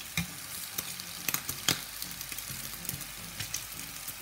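Bacon strips sizzling in a frying pan as they are turned with tongs: a steady hiss broken by many small pops and crackles, with a few sharper pops in the middle.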